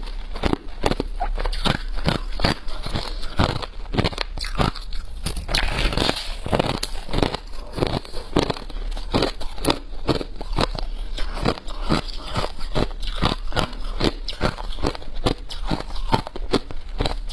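A person biting and chewing a packed lump of crushed ice, close up: a steady run of sharp crunches, several a second.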